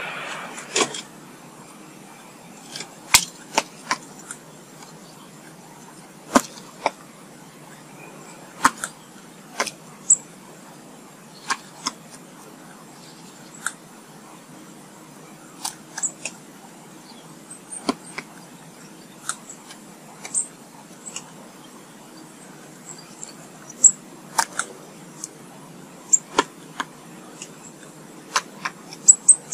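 Small birds feeding at a garden feeder: sharp, irregular pecking taps and clicks, with a few short, high chirps now and then.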